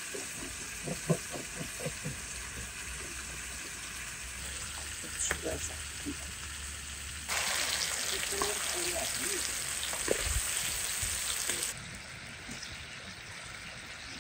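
Food frying with a steady sizzle. The sizzle gets much louder about seven seconds in, holds for about four seconds, then drops back.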